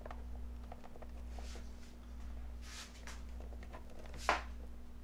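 Light handling sounds of a plastic generator control panel while a small washer is fitted onto a toggle switch by hand: faint rustles and small clicks, with one sharper click about four seconds in, over a steady low hum.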